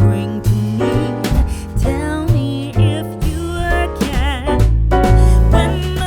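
A song with a singing voice over bass, piano and a steady beat, with vibrato on the sung notes.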